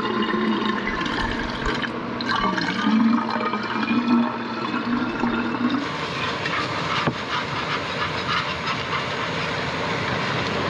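Water being poured and running, with a hollow pitched tone for about the first six seconds, then a steadier hiss.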